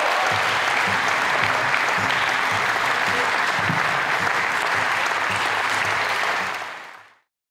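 Spectators applauding, a dense, steady clapping that fades out about seven seconds in.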